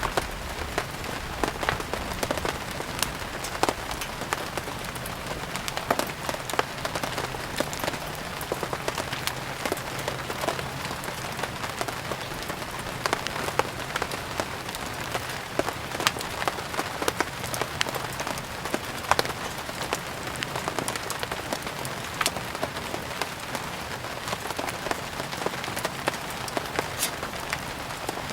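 Steady rain falling, mixed with a crackling wood fire: sharp pops and clicks scattered irregularly throughout over an even hiss.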